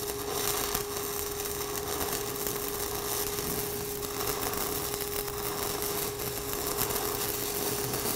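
Shielded metal arc (stick) welding with a 6010 electrode at about 75 amps, running an open root pass: the arc crackles and hisses steadily, with a steady hum underneath.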